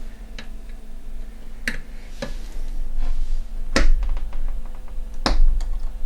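A small screwdriver working a tight backplate screw on a graphics card, giving a series of sharp clicks; the loudest come about four and five seconds in.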